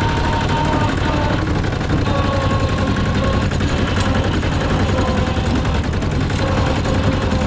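Rice combine harvester running steadily: a continuous low engine note with a rapid pulse, and a thin, steady whine over it.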